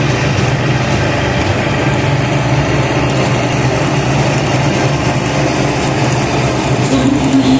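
The 25 hp Perkins diesel engine of a mini tracked skid steer loader running steadily.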